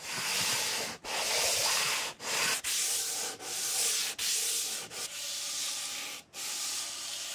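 Wood being worked by hand: a run of hissing, rubbing strokes about a second each, cut off sharply between them.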